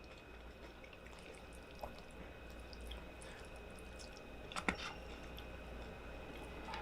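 Faint chewing of food, with scattered small clicks and one sharper click about four and a half seconds in.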